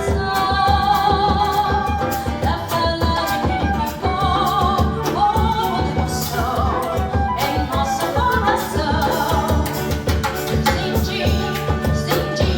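A samba played by a small ensemble of female voice, flute, guitar and percussion, with a steady percussion beat under a wavering melodic line.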